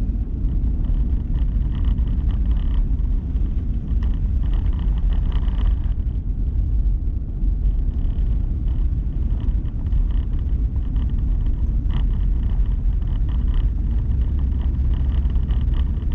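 Steady low road and engine rumble of a four-wheel-drive vehicle driving on snow-covered roads, heard from inside the cabin.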